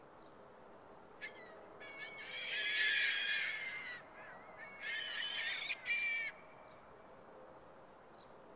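A flock of gulls calling, many overlapping cries at once. They come in two bursts: the first builds to its loudest about three seconds in, and a shorter second one follows around five to six seconds.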